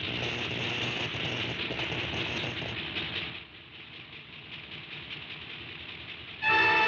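Cartoon sound effect of a giant electric ray machine powering up: a steady, crackling electrical noise that drops to a lower level about three seconds in. Loud music comes in near the end.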